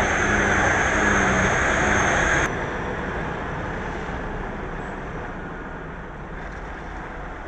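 Heavily loaded Tata lorry's diesel engine running under load as it rounds a hairpin bend. For the first couple of seconds a loud hiss lies over it, then the sound drops abruptly and the engine carries on quieter.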